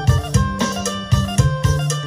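Thai phin (Isan lute) music with plucked melody over a steady drum beat, played loud through a Tronsmart Halo 110 Bluetooth party speaker.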